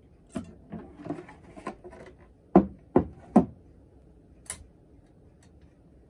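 Hard carrying case of a 1966 Olympia Socialite portable typewriter being unlatched and opened: light clicks and rattles as the latches are released, then three heavy knocks in quick succession as the lid is lifted off and set down, and a single sharp click about a second later.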